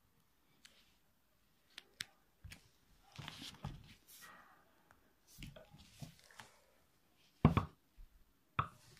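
Faint scattered clicks, knocks and rustles, with one louder low thump about seven and a half seconds in.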